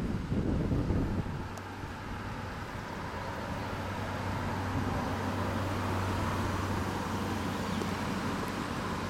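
Wind buffeting the microphone for about the first second, then a steady engine hum over the rushing floodwater of a swollen river.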